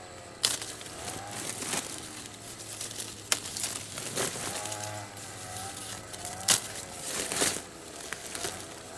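Crinkling of a woven plastic sack and rustling, snapping citrus leaves and twigs as oranges are picked by hand and dropped into the sack, in a series of sharp crackles. A few short pitched calls sound faintly in the background.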